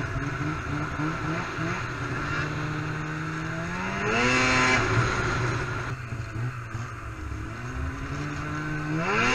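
Snowmobile engine running under throttle while riding. Its pitch climbs about four seconds in, drops back, and climbs again near the end.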